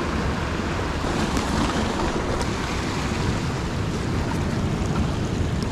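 Sea surf washing and breaking over rocks, a steady rushing noise, with wind buffeting the microphone.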